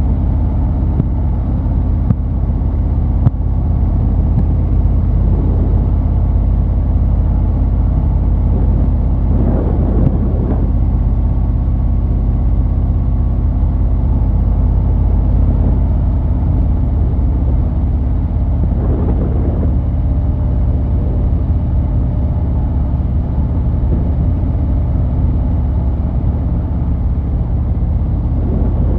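2023 Harley-Davidson Fat Boy 114's Milwaukee-Eight 114 cubic-inch V-twin running through Vance & Hines Eliminator 300 PCX pipes, a steady deep rumble at cruising speed.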